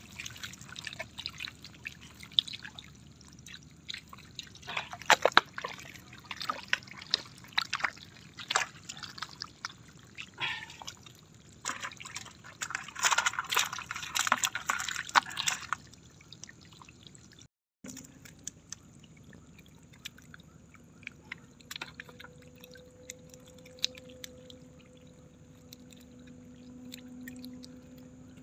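Wet splashing and dripping as small seluang fish flop in the shallow water of a fish-trap net while hands scoop them up: a busy run of irregular splashes for about sixteen seconds, then, after a break, quieter scattered wet sounds over a faint steady hum.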